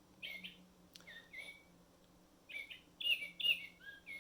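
Recorded bird song played from the small speaker of a Mark Feldstein Audubon singing bird wall clock: a series of short chirping notes, some sliding down in pitch, in two bursts with a denser run in the second half, over a faint steady hum.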